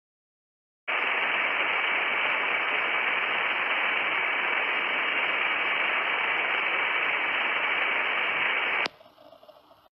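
Loud, steady radio static with a high whistle held through it. It cuts in about a second in and stops abruptly with a click near the end, leaving only a faint hiss. It is the sound of a lost radio signal, as the drone loses its link.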